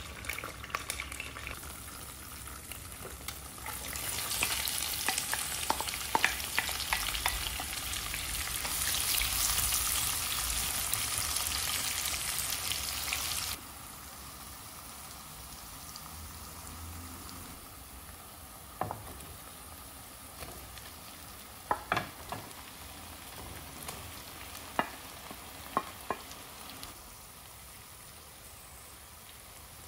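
Food sizzling as it fries in a pan. The sizzle grows louder about four seconds in and cuts off abruptly about halfway through, leaving a quieter steady sizzle broken by a few sharp clicks.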